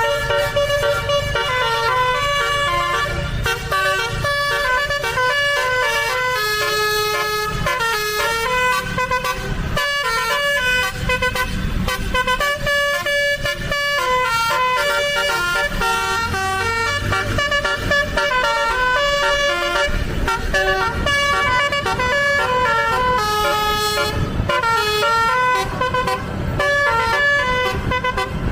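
Indonesian bus telolet horn, a set of air horns playing a tune of short stepping notes, with a few brief pauses. The bus engine runs low underneath.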